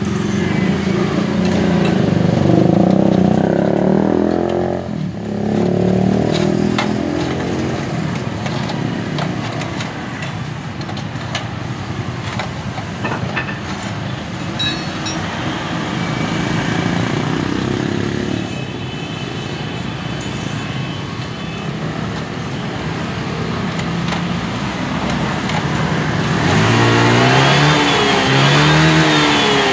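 Motor vehicle engines running and passing, with one engine revving up and down a few times near the end.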